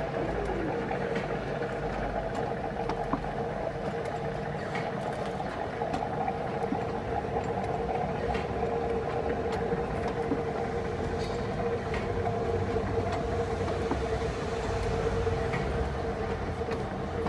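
Neuberger MN-25F rotary tablet press running: a steady mechanical hum with a constant tone, with scattered light clicks.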